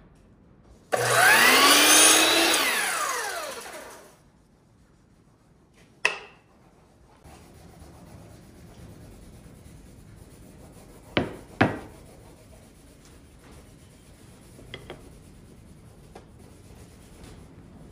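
Ridgid sliding compound miter saw starting up with a sudden loud whine and cutting a corner off a small piece of wood, then winding down, its pitch falling over about three seconds. Later a sharp knock about six seconds in and two quick knocks about eleven seconds in.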